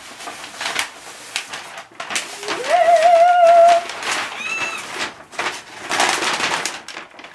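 Kraft paper wrapping crinkling and rustling as it is pulled off a shipped plant, in short crackly bursts. A woman's long excited wordless 'ooh' a few seconds in is the loudest sound, followed by a brief high squeal.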